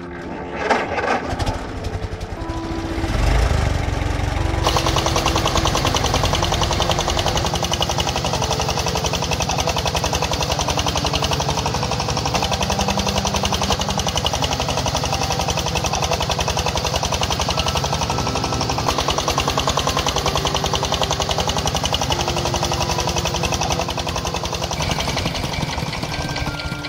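Tractor engine sound running steadily with a fast, even chugging rattle, which sets in a few seconds in. Light background music with a simple tune plays over it.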